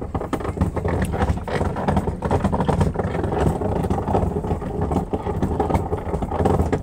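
A boat's inboard engine running loudly and steadily with a fast, even clatter, heard from the wheelhouse while the helmsman manoeuvres the boat alongside the quay.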